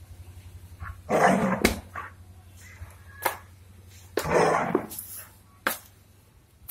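Labrador retriever giving two short, loud, aggressive barks, one about a second in and one about four seconds in, with a few sharp clicks in between.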